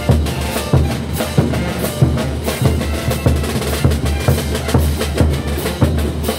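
Bolivian brass band playing a morenada: big bass drums beat out a steady heavy pulse under snare drums, clashed cymbals and tubas and trumpets.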